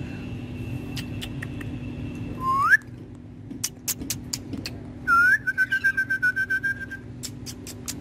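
Whistling: a short rising whistle, then sharp clicks, then a longer held whistle that pulses quickly. A rapid run of sharp clicks follows, about five a second.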